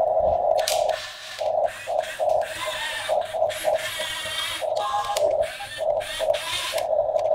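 Huina radio-controlled toy excavator's small electric motors whirring in short spells, starting and stopping every second or so as the boom, arm and turntable move.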